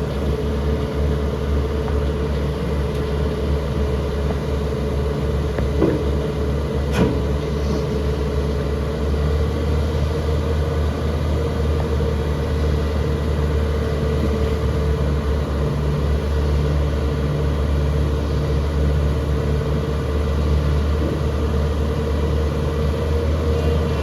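Takeuchi TL12R2 loader's diesel engine running steadily with a deep, even rumble. There is a single short knock about seven seconds in.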